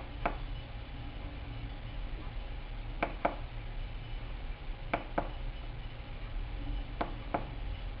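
Small tactile push-button switch pressed and released four times, each press giving a pair of sharp clicks about a quarter second apart, over a steady low hum.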